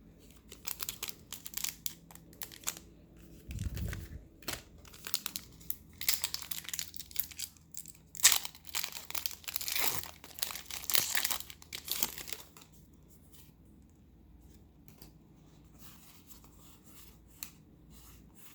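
Pokémon booster pack's foil wrapper being torn open and crinkled: a run of crackling tearing and rustling that stops about two-thirds of the way through.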